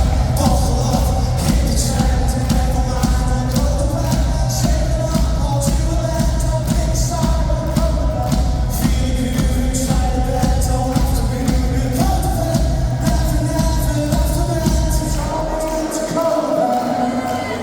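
A live band playing with a singer over drums and bass guitar, heard in a large hall. Near the end the bass drops out.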